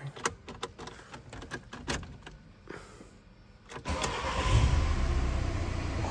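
A run of light clicks and knocks, then, about four seconds in, a VW Multivan T5's 2.0 TDI biturbo diesel engine starts and settles into a steady idle, heard from inside the cab.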